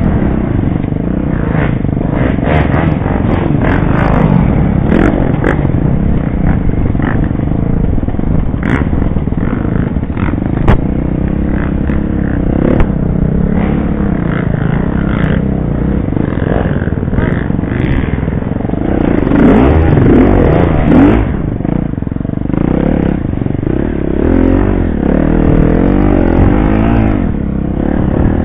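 Off-road dirt bike engine heard on board, revving up and down as the throttle is opened and closed. Short knocks and clatter come from the bike bouncing over the rough trail.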